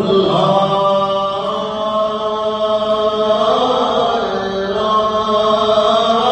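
Zikr chanting: a voice into a microphone, singing long held, slowly wavering devotional notes.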